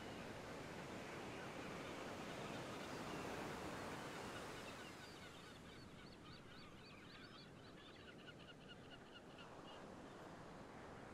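Faint sea surf washing on a rocky shore, with a bird giving a rapid run of short, high piping calls from about five seconds in until shortly before the end.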